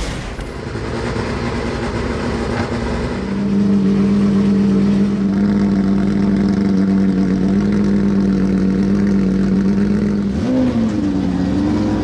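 A Porsche 911 GT3 Cup's naturally aspirated flat-six fades in and settles into a steady idle. Near the end comes one quick throttle blip, the revs rising and falling.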